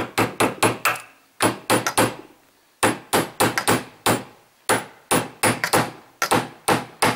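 Quick light hammer taps on a Teflon punch, driving a Glock's fibre-optic rear sight sideways into the slide's dovetail. The taps come in runs of three to six, about five a second, with short pauses between runs.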